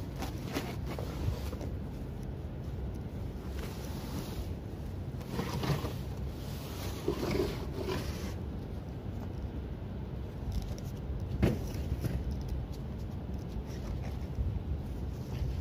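A steady low rumble with scattered knocks and scrapes from a wooden board being handled, and one sharper knock about eleven seconds in.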